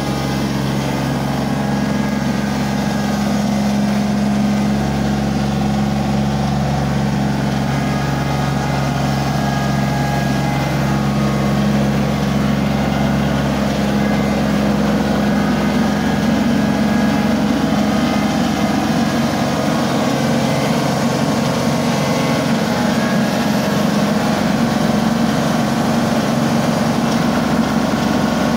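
Compact tractor engine running steadily as the tractor is backed into a shed, its pitch shifting a little about twelve seconds in.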